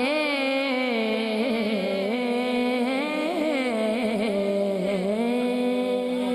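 A boy's solo voice singing a naat, drawing out the end of the line in a long wavering melisma. About five seconds in, it settles onto one steady held note.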